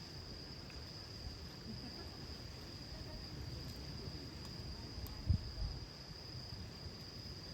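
A steady, high, unbroken insect drone, like crickets, over a low rumble, with one brief low thump about five seconds in.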